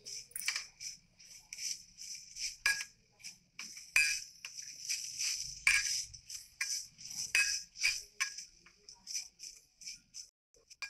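Spatula stirring and scraping grated pumpkin as it fries in ghee in a nonstick pan, a quick irregular series of short scraping strokes.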